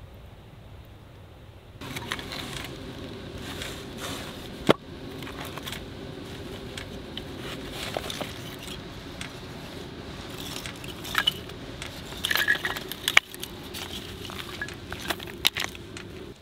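Split firewood knocking and clattering as pieces are picked up and stacked into a canvas log carrier, a run of irregular wooden knocks with a few sharp loud ones.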